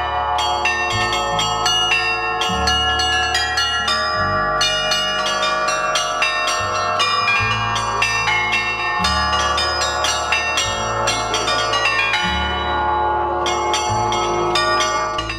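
A portable frame of about a dozen bronze church bells played by one ringer in a fast, continuous peal: quick strikes on many bells ring over one another, while the lower notes change every second or two.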